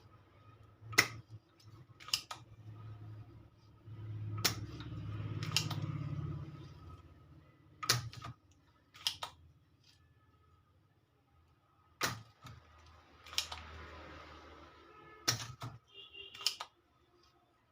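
Sharp, separate clicks and clinks of tools and parts being handled at a workbench, about ten of them at irregular intervals, over a faint low hum.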